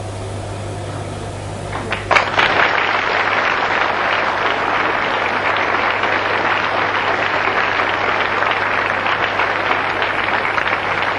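Audience applauding, breaking out about two seconds in and continuing steadily.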